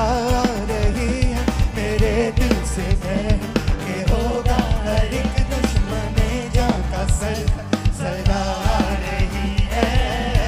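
Live rock band playing a song: a male singer's voice carries a wavering melody over a steady drum beat, bass guitar and acoustic guitar.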